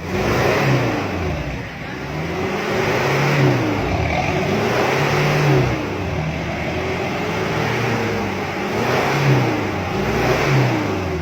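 A vehicle engine being revved again and again, its pitch rising and falling with each blip of the throttle. It is a smoke-belching engine being run up to show its exhaust smoke.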